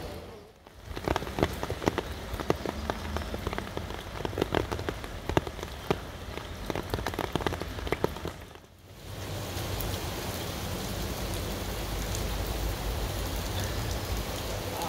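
Rain falling on a flooded paved street, with many sharp close drop splashes in the standing water, then a steadier rain hiss. The sound drops out briefly twice, about half a second in and again near the middle.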